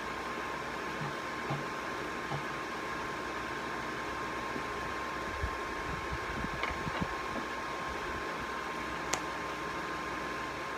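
A steady whirring hiss with a faint, even hum, broken by a few soft knocks about halfway through and one sharp click near the end.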